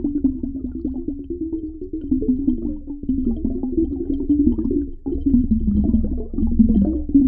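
Underwater ambience: water bubbling and gurgling with a steady low rumble underneath.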